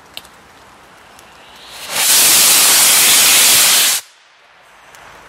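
A 500 g R-candy (potassium nitrate and sugar) rocket motor firing: a loud, even rushing noise builds up about two seconds in, holds steady for about two seconds and cuts off abruptly at burnout. A single sharp click comes near the start.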